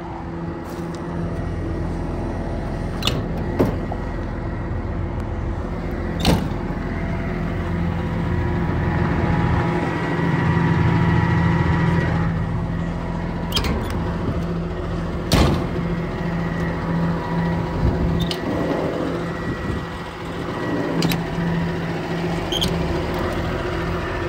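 Cummins diesel engine of a Ford F-750 utility truck idling steadily, with several sharp metal clicks and knocks as the utility body's compartment doors and latches are handled.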